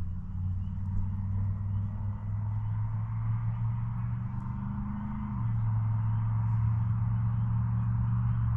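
A steady low motor hum, like an engine running, that shifts in tone and gets a little louder about five seconds in.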